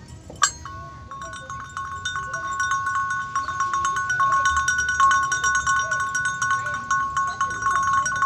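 Small brass cowbell with a wooden clapper (bell no. 2 of a set) shaken rapidly. The clapper knocks many times a second and the bell rings a steady pitch, starting just under a second in.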